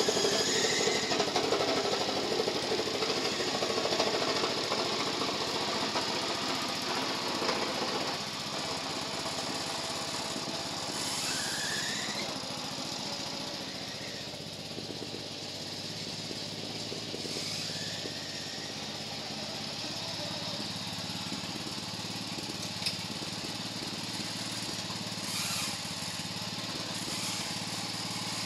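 Engine of a WOLF-Garten Cart OHV 2 lawn-mower go-kart running as it is driven about, louder for the first several seconds, then quieter and steady.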